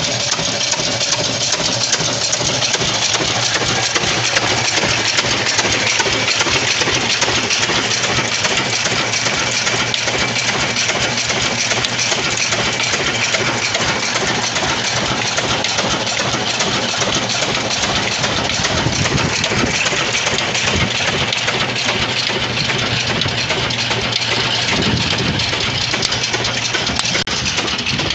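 Ruston Hornsby horizontal stationary diesel engine running steadily, driving a long flat belt.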